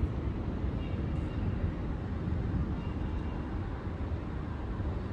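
Strong storm wind buffeting the microphone: a steady, rough low rumble.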